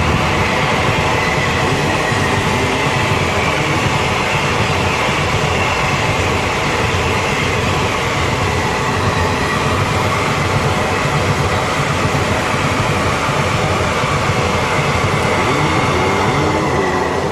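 Passenger express train passing at speed: a steady loud rumble and rattle of wheels on rail joints, with a faint high whine that slowly falls in pitch. The noise starts to fall away at the very end as the train clears.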